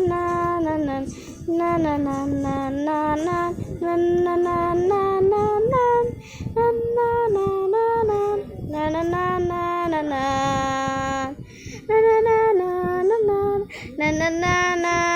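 A child singing a wordless tune, holding notes and stepping between pitches with short breaks between phrases.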